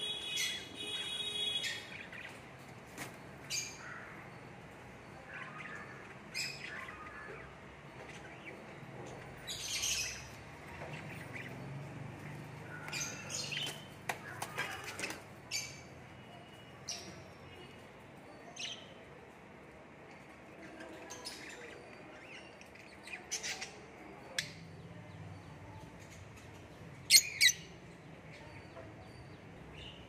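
Caged cockatiels and budgerigars calling: scattered squawks and short chirps, with a drawn-out call near the start and two sharp calls, the loudest, near the end.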